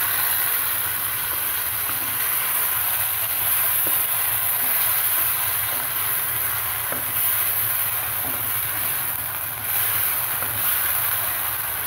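Marinated chicken frying in a karahi, with a steady sizzling hiss as it is stirred. There are a couple of faint spatula taps against the pan, about four and seven seconds in.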